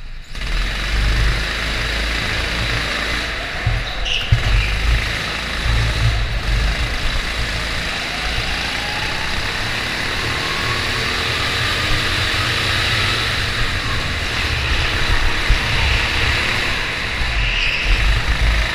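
Kart engine, picked up by an onboard camera, jumping to full power as the kart pulls away from a standing start, then running hard with the revs rising and falling through the corners.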